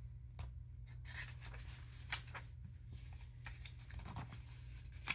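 Paper rustling and soft scraping as the pages of a hardcover picture book are handled, with a page turned about four seconds in. A low steady hum runs underneath.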